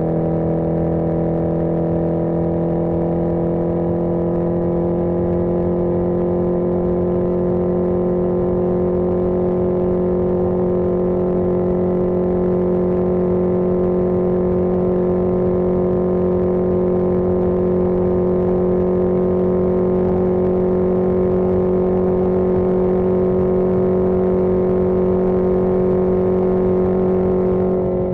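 1981 Yamaha XJ650 Maxim's air-cooled inline-four engine running steadily under way at cruising speed. Its pitch climbs slightly over the first few seconds, then holds even.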